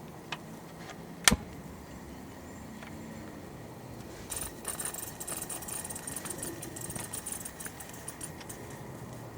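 A sharp click a little over a second in, then several seconds of light, high jingling and rattling from small hard objects being handled.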